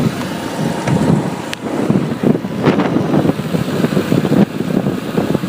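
Road and traffic noise heard while riding a motorbike: a steady rumble with wind buffeting the microphone, and a couple of brief clicks.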